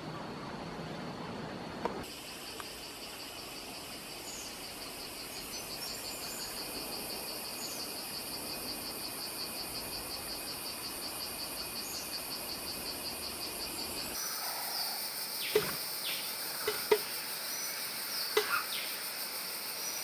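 Forest ambience: a steady, rhythmically pulsing insect chorus with short bird chirps over it. About two-thirds of the way through it changes to a different, higher insect drone, with a few sharp knocks near the end.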